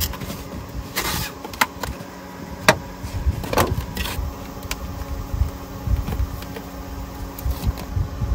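A series of irregular knocks and clicks as things are handled and moved about, the sharpest a little under three seconds in, over a steady low hum.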